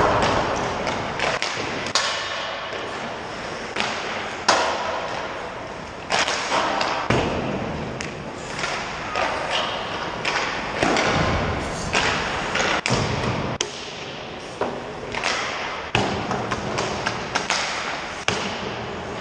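Hockey pucks being shot and cracking off sticks, the boards and the goal, sharp impacts about once a second that echo around the ice rink, with skate blades scraping the ice in between.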